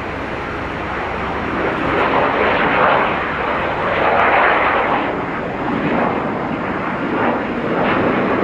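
Jet roar of Kawasaki T-4 trainers flying over, a loud rushing sound that swells about two seconds in, eases around five seconds, then rises again near the end.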